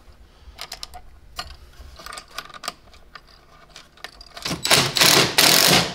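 Light metal clicks and clinks as nuts and washers go onto the bolts of a mounting bracket, then, about four and a half seconds in, a loud burst of noise lasting about a second and a half.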